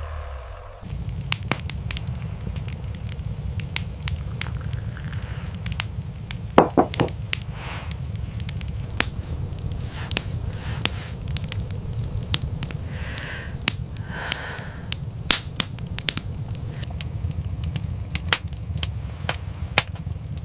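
Wood fire crackling, with many sharp, irregular pops over a steady low rumble.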